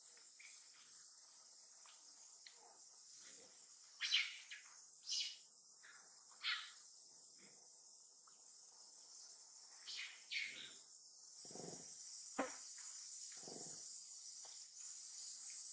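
Steady high-pitched insect chorus, a little louder in the second half, with scattered short chirps and clicks over it and a few brief lower sounds near the end.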